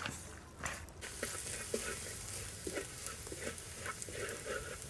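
Minced garlic sizzling in hot oil in a steel wok, stirred and scraped with a wooden spatula, frying until fragrant. A few sharp clicks come first, and the steady sizzle starts about a second in, with scattered short scrapes of the spatula.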